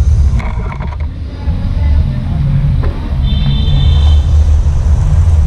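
Honda Supra GTR 150 motorcycle engine running with a loud, uneven low rumble. A brief high whine rings out about three seconds in.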